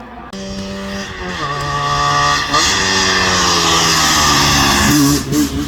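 Rally car engine at full throttle, changing up through the gears twice, growing louder as the car approaches and passes close by.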